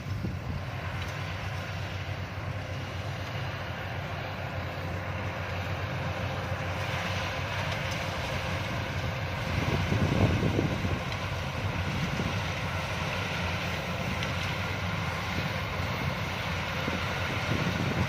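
Yanmar YH-850 combine harvester's diesel engine and threshing machinery running steadily while harvesting rice, swelling louder for a moment about ten seconds in.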